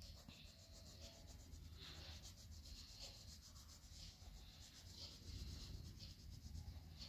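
Pink wax crayon rubbed back and forth on paper, colouring in a shape: faint, rapid scratching that swells about once a second with each run of strokes.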